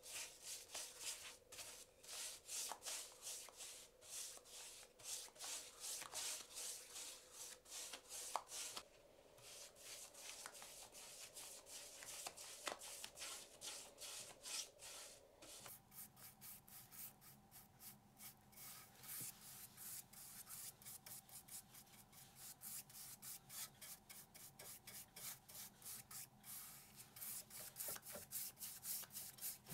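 Repeated hand rubbing strokes on a surface, a steady back-and-forth of a few strokes a second, with a brief pause about nine seconds in.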